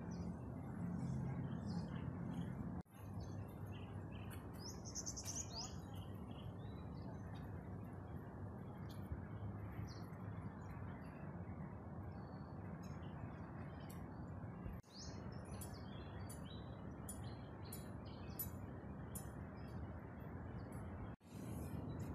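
Small birds chirping in short, scattered calls over a steady low hum of city background noise. The sound drops out briefly three times.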